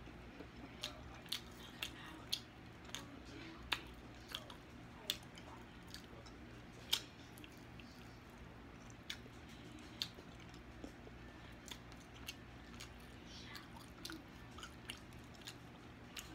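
A person eating sauce-glazed barbecue ribs close to the microphone: wet chewing and lip smacks, with sharp smacking clicks every second or so.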